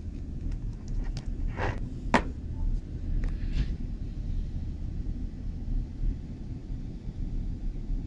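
A few small plastic-and-metal clicks about one to four seconds in, the sharpest about two seconds in, as a generic Lightning cable plug is pushed into an iPad 4's charging port. Under them is a steady low background noise.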